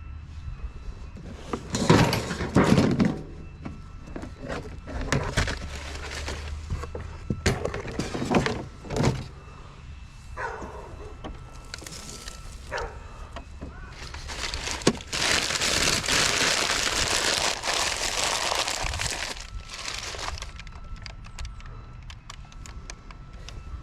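Junk being handled and shifted in a scrap pile: a series of thunks and clattering knocks, followed by several seconds of loud, even rustling noise.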